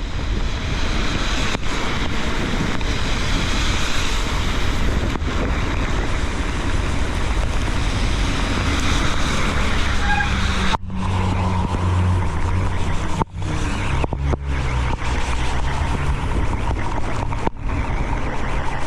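Loud steady rush of wind and rain noise on a bike-mounted action camera during a fast ride among road traffic. A vehicle's low engine hum comes in about two-thirds of the way through. The sound cuts out abruptly for a moment several times.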